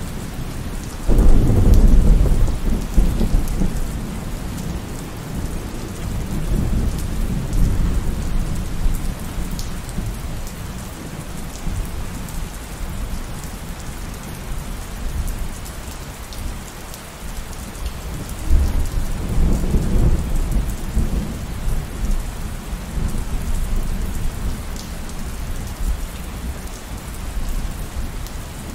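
Steady rain falling, with low rolls of thunder: a loud one breaks in suddenly about a second in and dies away over a few seconds, a softer roll follows a few seconds later, and another comes about two-thirds of the way through.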